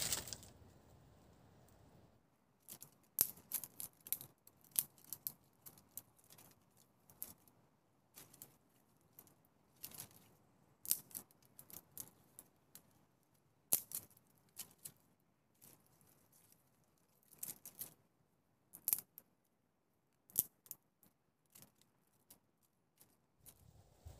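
A bundle of dry brushwood is dropped onto the ground with a crash, then dry twigs are snapped and broken by hand in a long, irregular run of sharp cracks and rustles.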